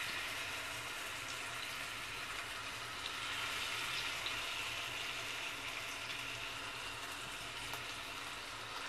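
Minced-meat seekh kababs shallow-frying in a little oil in a nonstick pan: a steady sizzle with a few faint pops, growing a little louder about three seconds in.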